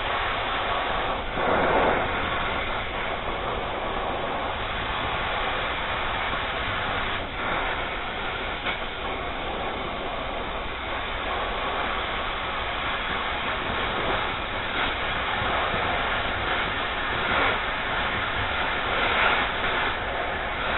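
Cutting torch hissing steadily as it cuts through steel plate, with a few brief swells in the rush.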